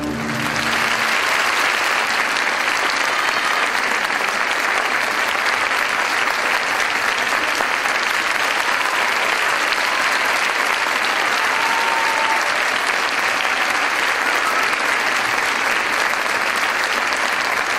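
Audience applauding steadily at the end of a ballet, just as the orchestral music's last chord dies away at the start.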